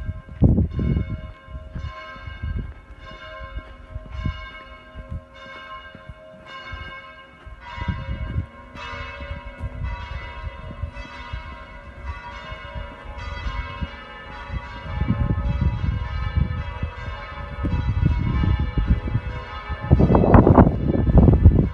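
Church bells ringing in a steady run of strikes, about one and a half a second, each note hanging on into the next. Low rumbling noise on the microphone comes and goes and is loudest near the end.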